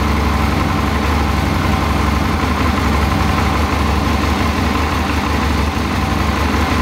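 Suzuki DL650 V-Strom's 645 cc V-twin engine idling steadily.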